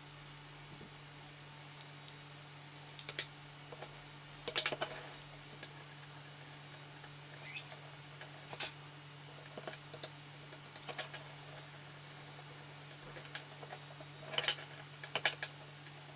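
Irregular small clicks and taps of small hard objects being handled, bunched into short clusters a few times, over a steady low hum.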